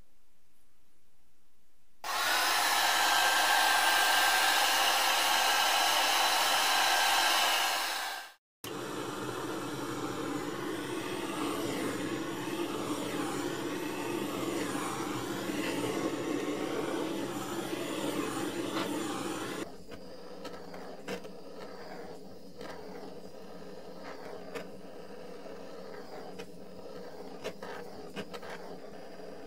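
A steady rushing blast from a heating tool warming the freshly varnished metal frame, the stage that turns thermochrome varnish to a chrome look. It is loud for about six seconds, then after a short cut runs lower and steadier for about eleven seconds, and after that only faint clicks of handling remain.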